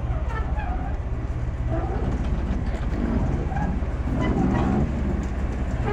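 Class 14 diesel-hydraulic locomotive running with a steady, deep, rapidly pulsing engine throb, with fainter mid-pitched sounds over it about two to five seconds in.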